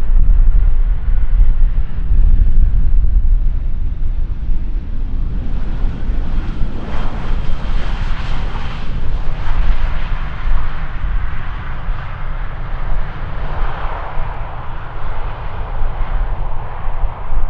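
Jet airliner flying past low, its engine noise swelling to its loudest with a faint fan whine about seven to nine seconds in, then easing off over a heavy low rumble.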